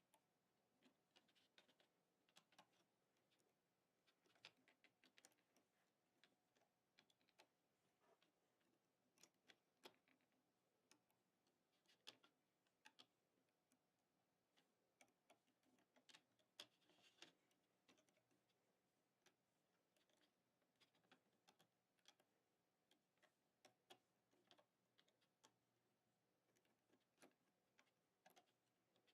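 Near silence with faint, irregular light clicks and taps, coming in small clusters: plastic loom pegs and rubber bands being handled as bands are looped onto the loom.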